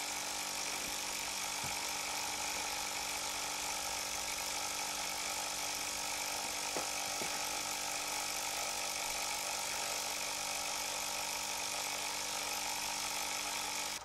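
Very small oscillating model steam engine running fast and steady: a high whirr with a strong hiss.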